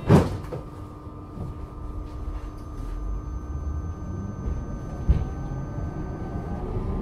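Adtranz GT6N tram: a door shuts with a loud thump right at the start, then the car stands with a steady electrical hum from its equipment, with a smaller knock about five seconds in. Near the end a faint rising whine begins as the traction drive starts to pull away.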